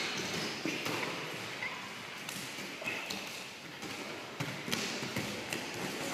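Scattered light thuds and taps of wrestlers' feet and bodies on a plastic-sheeted wrestling mat during a grappling bout.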